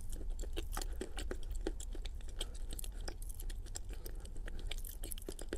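A person chewing a mouthful of soft, wet clay paste: irregular sticky mouth clicks from the lips and tongue, over a steady low hum.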